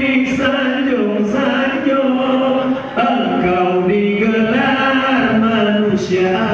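A man chanting melodically into a microphone, holding long notes that waver and glide slowly between pitches, with short breaths between phrases, in the style of a melodic Quranic recitation.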